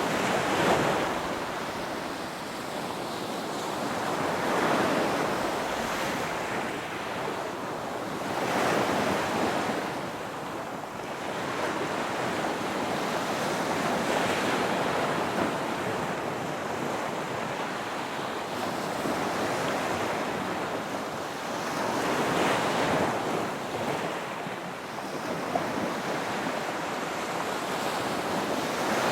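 Ocean waves breaking and washing on a shore, a steady rush of surf that swells with each wave every four or five seconds, with some wind.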